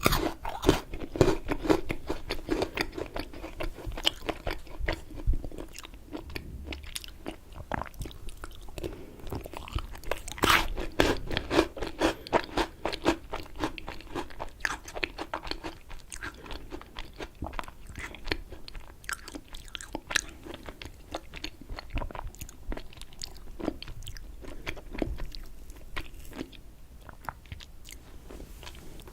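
Close-miked eating of raspberry cheesecake: biting and chewing with many small wet, sticky mouth clicks. The clicking comes thick and fast, loudest about ten to thirteen seconds in.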